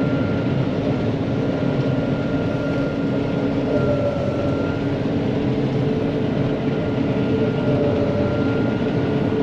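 John Deere 9500 combine running steadily: a constant mechanical drone with a few faint steady whining tones above it.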